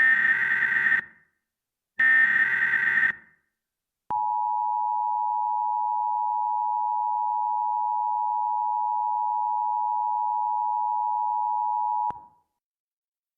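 Mock Emergency Alert System broadcast: the last two of the three SAME header data bursts, each a buzzy warble about a second long, then about four seconds in a steady EAS attention tone just under 1 kHz that holds for about eight seconds and cuts off suddenly.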